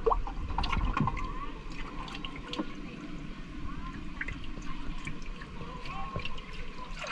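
Water sloshing and trickling in a boat's fish hold as a hand moves fish around in the ice water, with small irregular splashes and drips, a little louder in the first second.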